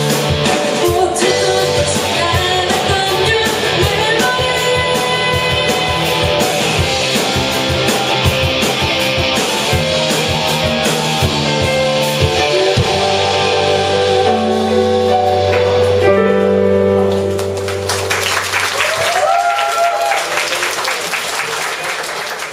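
A live rock band with electric guitar, drums and vocals playing the end of a song, closing on a held chord that stops about three-quarters of the way through. Audience applause and a cheer follow.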